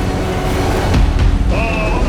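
Heavy low rumble of tow-truck engines and a loaded dump truck being dragged, swelling about a second in, under background music. A high wavering tone enters near the end.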